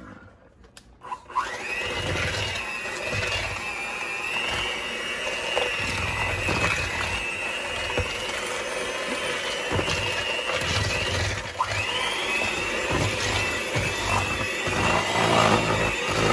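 Electric hand mixer starting up about a second in and running with a steady whine, its beaters churning cream cheese and brown sugar for a cheesecake filling in a plastic bowl. It cuts out briefly about two-thirds of the way through, then starts again.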